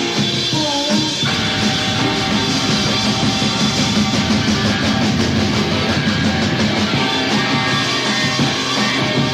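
A rock band playing a recorded track. The sound thickens into a dense wall of band sound about a second in.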